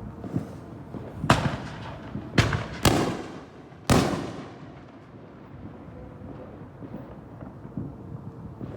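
Fireworks shell bursts: four loud booms in quick succession, about a second apart, the last followed by a long fading rumble, with smaller scattered pops around them.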